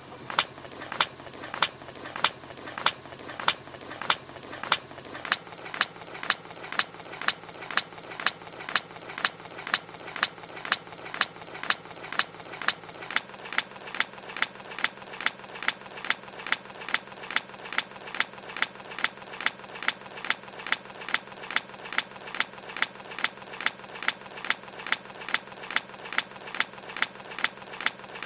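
A hedgehog's tiny sneeze, one short recorded sneeze repeated over and over in a steady rhythm that gradually speeds up, from about two a second to about three a second.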